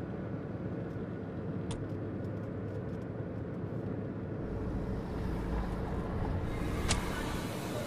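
Street traffic noise, with a passing vehicle's low rumble swelling about halfway through. There are a couple of sharp clicks, one early and one near the end.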